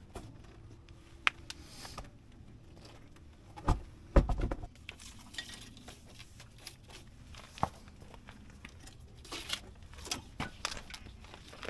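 Scattered clicks, clanks and knocks of hand work on a tractor, with a heavy thump about four seconds in and a cluster of clicks about ten seconds in.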